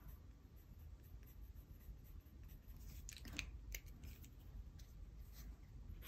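Faint scratching of a 0.5 mm mechanical pencil's lead on sketchbook paper in short shading strokes, with a few slightly louder strokes about halfway through.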